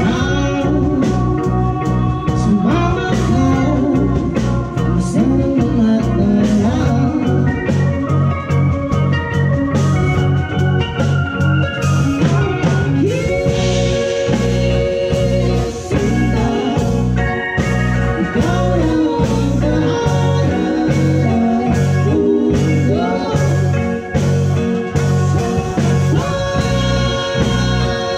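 Live band playing a song with vocals: singers over bass guitar, keyboards and a drum kit, with a steady beat.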